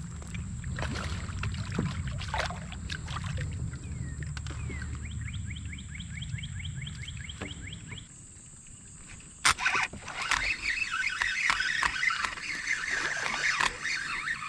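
Handling noise from a spinning reel and rod in a plastic fishing kayak: low rumbling bumps, a run of fast, even clicks of about six a second, then a sharp click about two-thirds of the way through followed by a spell of quick rattling and ticking. The reel is one the angler calls badly messed up.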